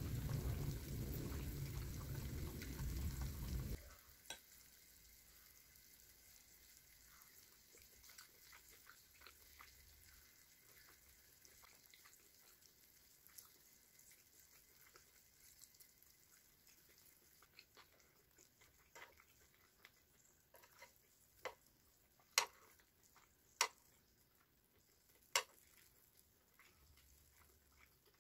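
Potatoes and cheese sizzling on a mini electric grill plate, a loud steady hiss that cuts off abruptly about four seconds in. After that it is quiet, with scattered light clicks of metal chopsticks and utensils against the grill and dishes, the sharpest few near the end.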